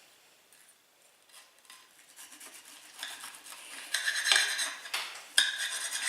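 Knife cutting a crumbed schnitzel on a plate, scraping and clinking against the plate in irregular strokes that start about two seconds in and grow louder.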